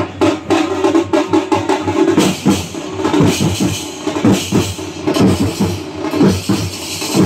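Loud procession percussion: drums beaten in a fast, steady rhythm together with large hand cymbals, and a held tone over the first two seconds.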